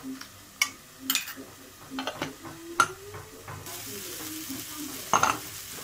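Metal spoon clinking and scraping against a small steel bowl as spice powders are stirred into a paste. A steady sizzling hiss sets in suddenly a little past halfway.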